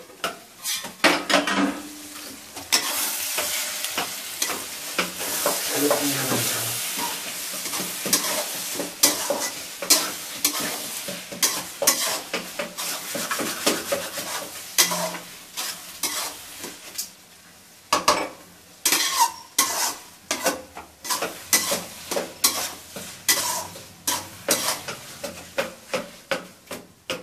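Chopped onions frying and sizzling in oil in an aluminium kadai while a ladle stirs and scrapes them, with clicks of the ladle against the pan. The sizzle fades about two-thirds of the way in, and a run of sharp regular metallic knocks, about one or two a second, follows.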